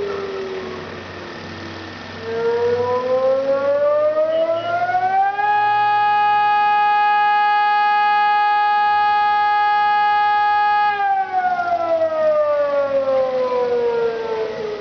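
Civil defence warning siren wailing. A falling tone dies away at the start; about two seconds in the pitch climbs for some three seconds, then holds one steady tone for about five seconds, and it winds down again over the last few seconds.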